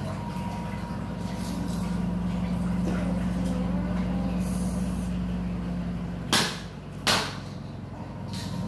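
Steady low mechanical hum, with two short, sharp, loud bursts of noise about a second apart near the end.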